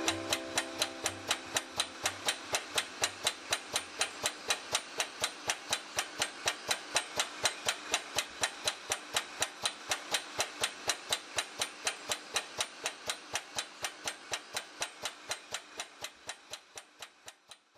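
A handlebar fatigue-testing rig cycling, making an even mechanical clicking at about three and a half clicks a second that dies away over the last few seconds.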